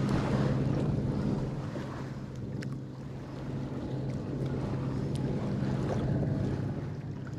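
A boat motor running with a steady low hum, under wind on the microphone and the wash of water.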